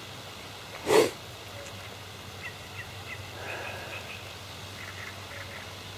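A single short, loud thump about a second in, then a few faint, high bird chirps over steady outdoor background noise.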